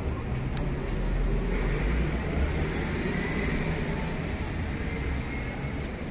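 Steady city street traffic noise: a continuous rumble of road vehicles.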